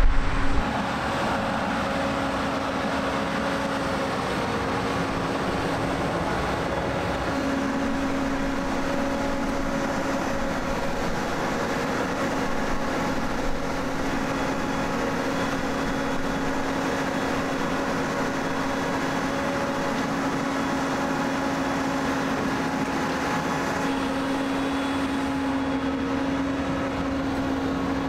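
John Deere combine running steadily: a constant engine and machinery drone with a steady hum.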